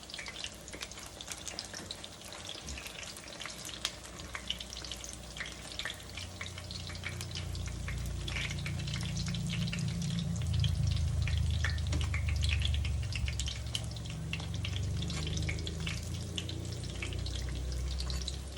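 Battered cauliflower pieces frying in a skillet of hot oil, a steady dense crackle and sizzle. From about six seconds in a low hum rises beneath it and stays until the end.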